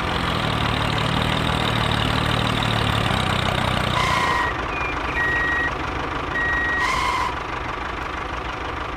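Tractor engine running steadily at idle, with a heavier low rumble for the first four seconds. Between about four and seven seconds a few electronic beeps sound, two of them held about half a second each, like a reversing alarm while the tractor backs up to the trailer.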